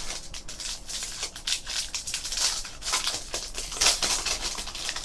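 Plastic and foil packaging crinkling and rustling in irregular bursts as a trading card box and pack are torn open and handled.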